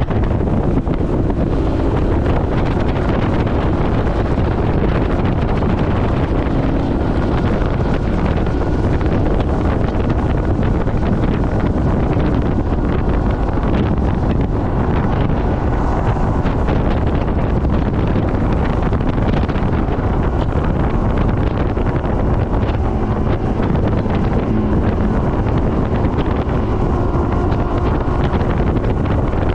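Heavy wind buffeting the microphone on a bass boat running at speed, with the Mercury outboard's steady drone and rushing water underneath. The noise holds at one loud level throughout.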